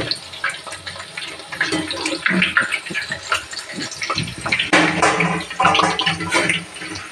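Gathiya (gram-flour dough strips) deep-frying in hot oil in a steel kadai, a steady sizzling crackle, with short metallic clicks from a perforated skimmer working the pan.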